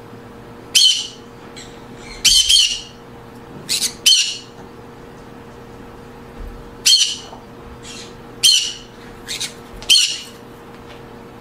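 Green-cheeked conures giving short, loud, harsh squawks, about eight at irregular intervals, some in quick pairs.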